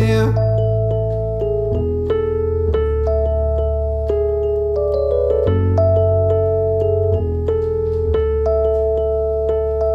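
Background music: an instrumental stretch of a pop song, electric piano or keyboard playing sustained chords over a steady bass, without singing.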